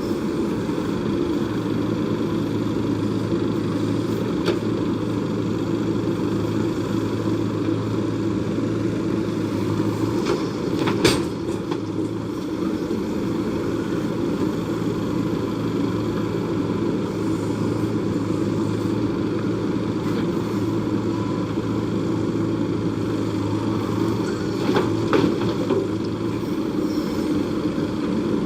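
Diesel engine of a JCB backhoe loader running steadily while it digs and loads. There is a sharp metal clank about eleven seconds in and a few lighter knocks near the end.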